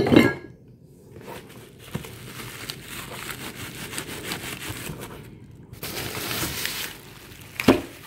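Bubble wrap and cardboard packing rustling and crinkling as a boxed electric motor is handled. There is a clunk at the start as a metal mounting bracket is put down, and another sharp knock near the end.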